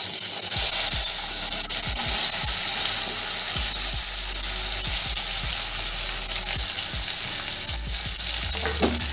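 Spice-coated okra pieces hitting hot mustard oil in a metal kadai: a loud sizzle that starts abruptly as the okra goes in, then steady frying hiss.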